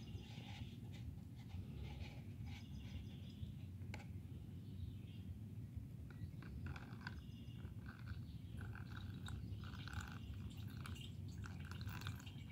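Faint trickle and crackle of gasoline being poured slowly from a plastic container onto a paper coffee filter in a funnel, with small intermittent crackles that grow busier in the second half. The gasoline is being decanted off the top so that the separated ethanol-and-water layer stays behind.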